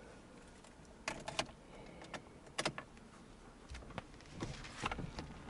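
Sharp clicks and light clatter of a screwdriver and hands working at the screws of the plastic steering-column cover: a cluster about a second in, a louder click near the middle, and several more near the end.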